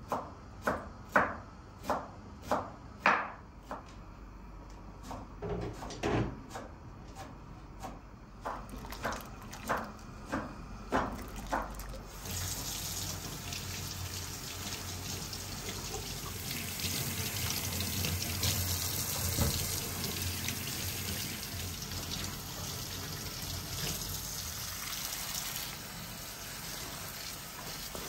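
Knife chopping fresh dill on a wooden cutting board, a string of sharp strokes at about two a second. About twelve seconds in it gives way to tap water running steadily into a stainless steel sink, splashing over cucumbers and herbs being rinsed under the stream.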